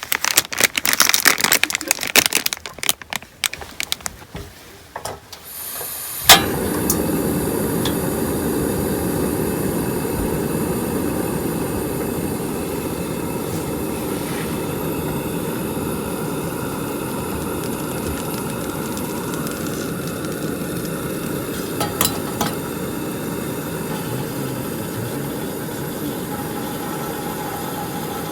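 Metal cookware clinking and rattling for a few seconds, then a sharp click and a portable gas stove burner running with a steady roar under a cooker set to steam buns.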